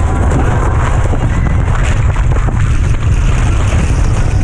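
Wind buffeting a helmet-mounted action camera's microphone as a skater speeds down an ice cross track: a steady, loud rush with a heavy low rumble.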